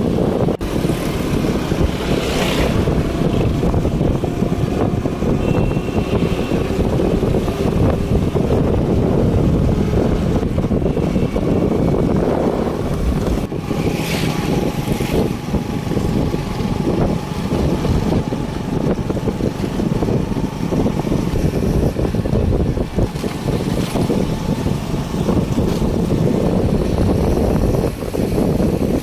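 Wind on the microphone and road noise from a moving vehicle, a steady low noise, with a couple of brief higher sounds about two seconds in and about halfway.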